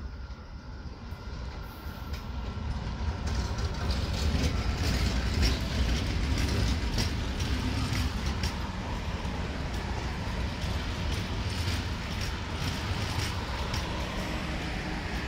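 Passenger train hauled by an electric locomotive passing close at speed: a steady rumble of steel wheels on the rails with a rapid, uneven clatter of clicks. It grows louder over the first few seconds as the locomotive and first coaches go by, then holds steady as the coaches keep passing.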